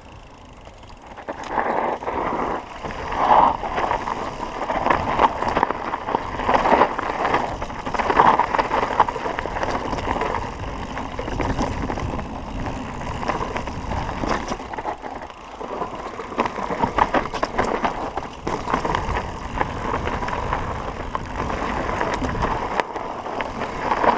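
Calibre Triple B mountain bike descending dirt singletrack at speed: continuous tyre rumble and rush, thick with rattles and knocks from the bike over bumps, starting about a second in and swelling and easing with the terrain.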